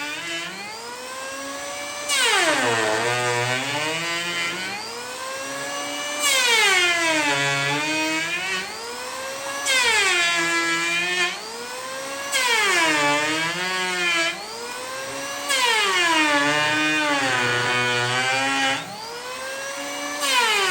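Electric angle grinder worked against metal in repeated passes. Each pass starts with a sudden loud bite, then the motor's whine drops in pitch under load and climbs back as the pressure eases, about six times.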